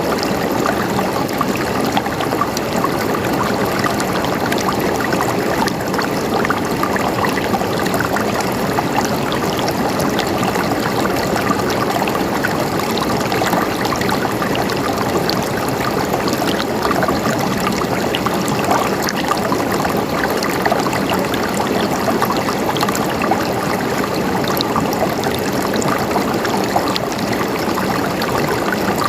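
Running water flowing and trickling steadily, with no break or change.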